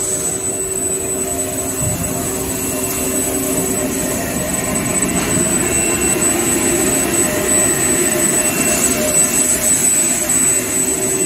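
Toilet-paper and kitchen-towel roll production line running at speed: a steady, loud machinery din with several steady hums and a thin high whine, growing a little louder about halfway.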